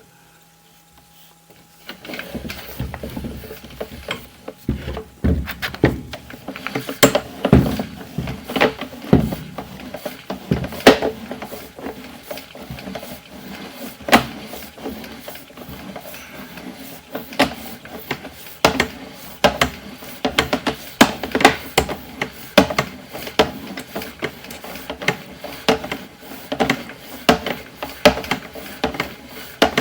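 Sewer inspection camera and its push cable clicking and knocking as they move, starting about two seconds in. The clicks are irregular, several a second, with louder knocks here and there.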